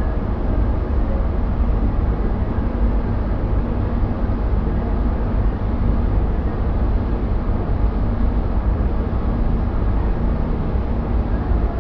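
Powder-coating booth running: a steady, even rush of moving air over a deep, constant low rumble.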